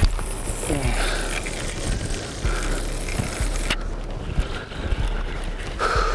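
Wind buffeting the microphone on an open boat, a steady low rumble under a faint rushing haze.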